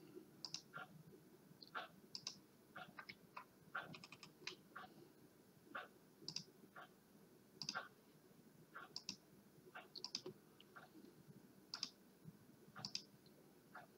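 Faint computer mouse clicks, irregular and spread throughout, some in quick pairs, as corners are clicked one after another in CAM software.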